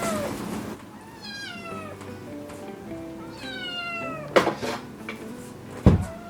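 Kitten meowing for food: two falling meows, about a second and three seconds in, over background music. Two sharp thuds follow in the second half.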